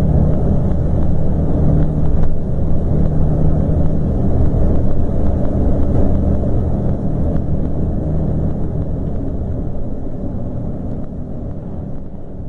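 Scania K420 coach's rear-mounted diesel engine running with a steady low drone, fading out gradually over the last few seconds.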